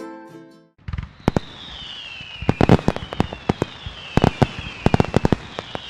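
Fireworks going off: a string of sharp cracks and bangs starting about a second in, with several whistles that slide down in pitch, one after another.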